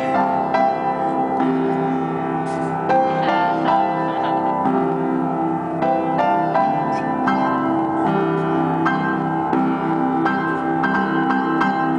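Upright piano played continuously, a busy stream of notes and chords with new notes struck several times a second.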